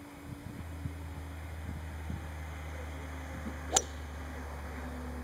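A three hybrid golf club striking a ball off the turf: one sharp crack a little under four seconds in, over a steady low hum.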